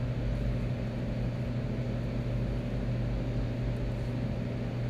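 Steady low machine hum with a constant pitch and no breaks, like a shop fan or air-conditioning unit running. The hand-taping of the wiring harness makes no sound that stands out above it.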